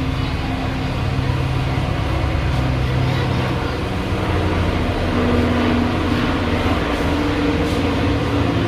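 Hot-air rework station blowing steadily with a low hum, heating a reballed eMMC chip so its solder balls reflow onto the phone board.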